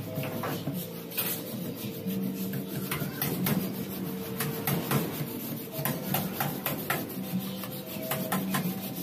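Plastic PVC pipe rubbing and scraping as one pipe is slid inside another, with irregular sharp clicks, over steady background music.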